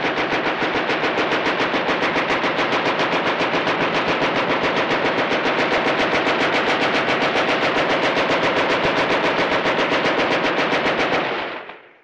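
Machine gun firing one long continuous burst of rapid, evenly spaced shots, trailing off about 11 seconds in.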